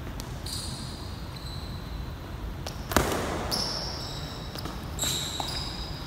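Sneakers squeaking on a gym floor in short chirps as two boxers move around while sparring. One sharp smack about three seconds in, the loudest sound, echoes in the hall, over a steady low rumble.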